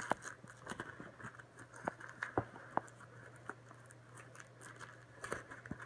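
Hands unwrapping soft packaging around a small item: light, irregular rustling and scratching with a scatter of sharp clicks and taps.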